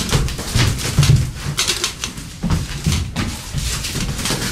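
Two people scuffling at close quarters: irregular rustling and knocking with low, muffled vocal sounds.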